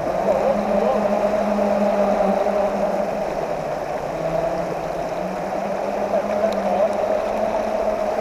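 Water of a small mountain trout stream running steadily over rocks, heard close by.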